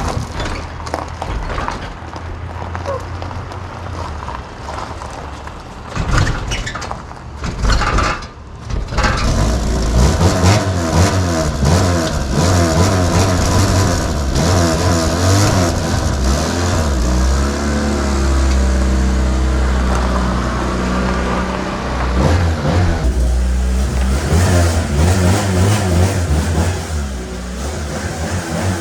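1989 Honda CRX Si's four-cylinder engine being bump-started by pushing the car, because the starter is faulty: a few seconds of clunks and rolling, then the engine catches about nine seconds in and runs. It is revved up and down, holds steadier for a while, then is revved again near the end, running for the first time in months.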